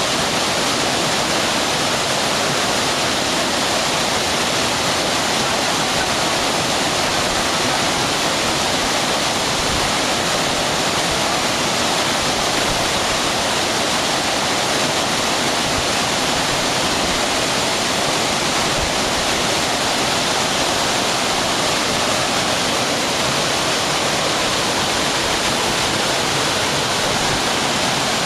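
Waterfall pouring steadily, a dense even rush of falling water close by.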